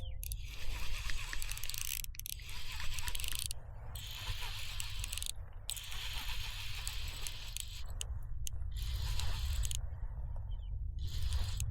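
Fishing reel being cranked, a whirring, clicking retrieve that stops and starts several times, over a steady low rumble.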